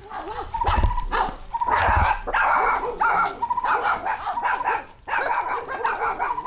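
A dog barking in short repeated barks, with a brief break about five seconds in.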